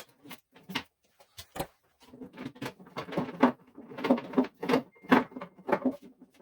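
Irregular clattering knocks and rattles of hands working on a wooden tool cart and its hardware, coming thick and fast from about two seconds in.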